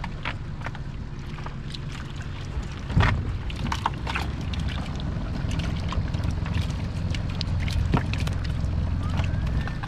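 Water splashing and sloshing as bait fish are handled in a dip net in a water-filled cooler, with many small clicks and a knock about three seconds in and another near eight seconds. A low steady rumble runs underneath.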